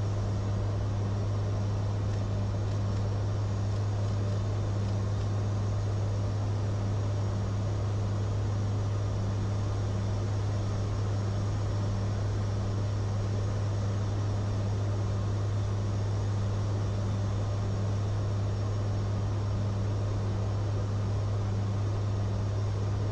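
Aircraft cabin noise in flight: a steady engine drone with a strong, constant low hum and an even rushing noise, unchanging throughout.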